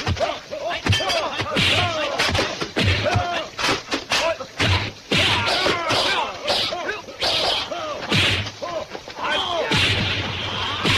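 Martial-arts film fight sound effects: a rapid run of punch and kick whacks and thuds with swishes, mixed with the fighters' short shouts and grunts.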